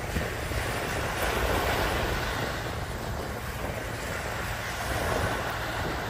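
Small waves breaking and washing up a sandy beach, surging twice, with wind rumbling on the microphone.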